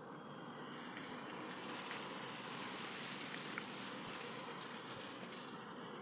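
Steady rushing noise inside the cabin of an Airbus A320 with CFM56 engines, from engine and airflow, swelling slightly in the first second, with a few faint clicks.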